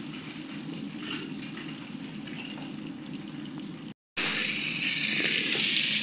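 Breaded chicken cutlets deep-frying in hot oil, bubbling and crackling. After a brief dropout about four seconds in, the frying comes back as a louder, steady sizzle.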